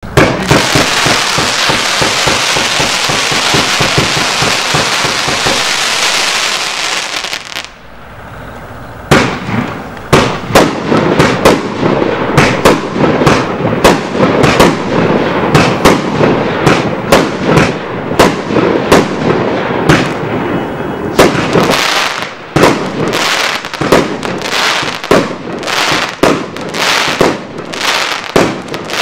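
Gemstone 'Here We Go' firework barrage cake firing. It opens with about seven seconds of dense hissing crackle. After a short lull comes a rapid string of sharp shots and bursting reports, several a second.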